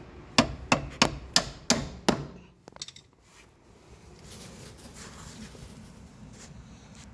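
Six hammer blows in quick succession, about three a second, then the striking stops.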